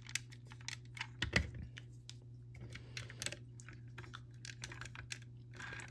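Lego bricks clicking and tapping as they are fitted onto a model and pressed down: a string of small, irregular plastic clicks, the sharpest about a second and a half in.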